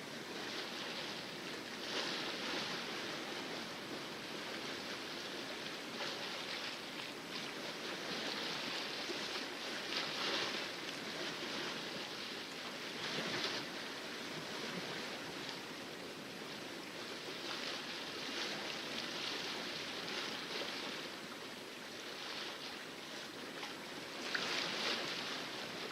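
Water splashing and rushing along a sailboat's hull as it sails in calm seas, with louder swishes every few seconds.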